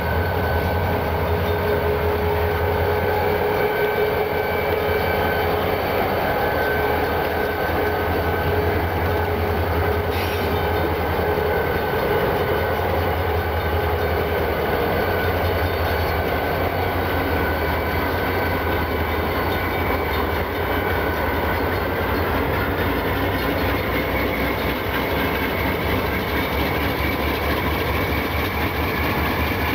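Diesel freight locomotives running close by, green BN units and a BNSF Warbonnet GE Dash 9: a steady, loud engine drone with humming tones. About two-thirds of the way through, a high whine starts to rise in pitch.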